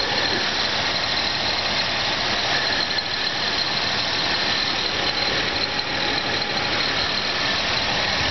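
A Nissan 3.5-litre V6 running at idle with the hood open, a steady engine sound with a thin, high-pitched whine held over it.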